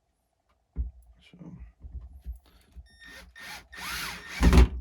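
Power drill/driver running in several short bursts to drive a screw into the RC truck, its motor whine rising and falling, loudest near the end.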